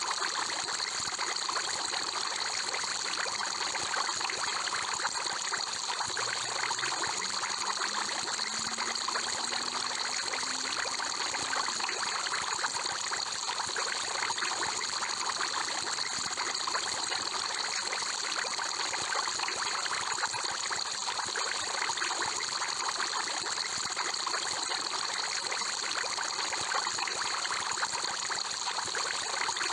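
Aquarium water bubbling and trickling steadily, as from an air-stone bubble column, with an even high hiss.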